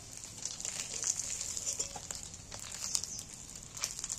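Hot oil sizzling and crackling in an aluminium karahi as fried fish pieces are lifted out, with a few light clicks of the metal spatula against the pan.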